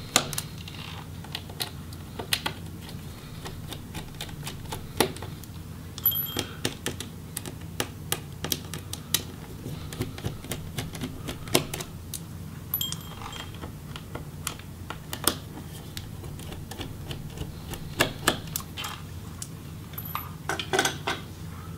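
Small Phillips screwdriver backing out the tiny bottom-case screws of a Samsung Chromebook laptop: irregular light clicks and ticks of the bit, screws and metal case, heard over a low steady hum.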